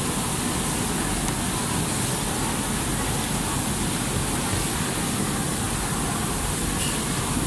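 Steady factory-floor noise: a dense, even hiss and hum of machinery and ventilation that does not change.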